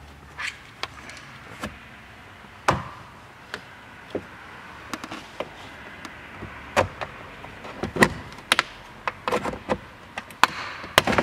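Irregular sharp clicks and knocks of the plastic B-pillar trim panel in an Audi A4 B7 being pried and pulled at by hand to pop its retaining clips, with a quick cluster of clicks near the end.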